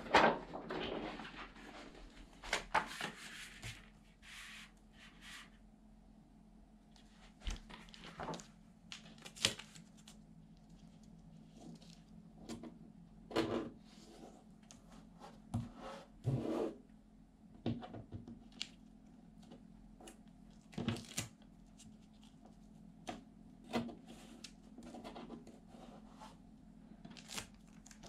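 Paper and vinyl sheet rustling and crinkling in irregular short bursts as a wall-art sticker's backing is peeled away and the sticker is pressed and smoothed onto a wall by hand, over a faint steady low hum.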